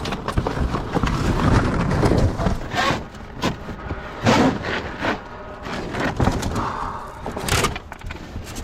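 Heavy scrap being shoved and pulled around in a packed dumpster: a steady rumbling scrape with repeated thuds and sharp knocks as the stuck pieces are worked loose.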